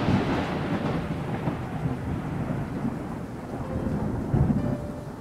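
Thunder rumbling over steady rain, a storm sound effect, with a second swell of rumble about four and a half seconds in.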